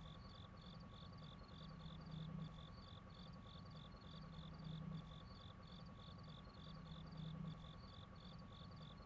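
Faint cricket chirping, short even chirps at about three a second, over a faint steady hum, with a soft low swell about every two and a half seconds.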